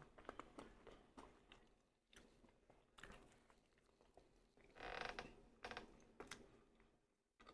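Faint scattered clicks and small knocks, with a brief creak about five seconds in.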